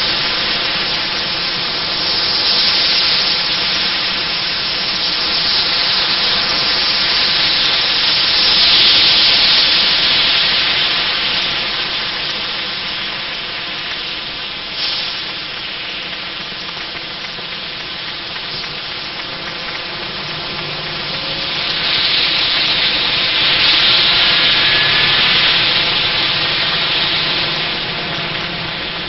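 Street traffic on a wet, slushy road: a steady hiss of tyres on wet asphalt that swells as vehicles pass, about 3, 9 and 24 seconds in. A single sharp knock about halfway through.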